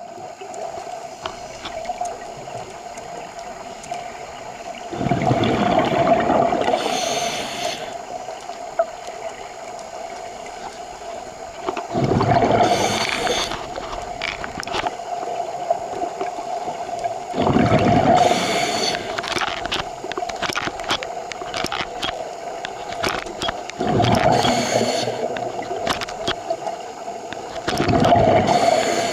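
Scuba regulator breathing underwater: a bubbling rush of exhaled air about every six seconds, each lasting two to three seconds, five times in all, over a steady hum and scattered small clicks.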